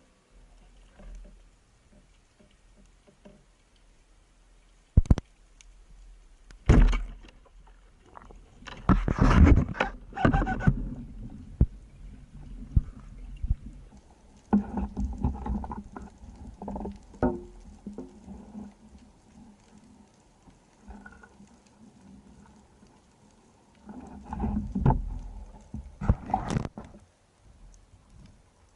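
Irregular sharp knocks and bursts of rushing, bubbling noise from a spearfishing dive recorded underwater. There is a single sharp knock about five seconds in and louder noise bursts around ten seconds and near the end.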